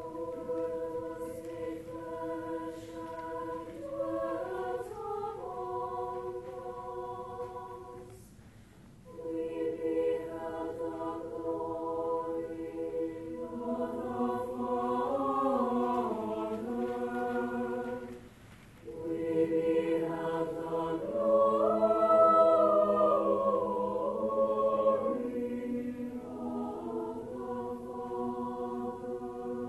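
Large mixed high school choir singing held chords. The singing comes in three phrases separated by short pauses, and the last phrase is the loudest.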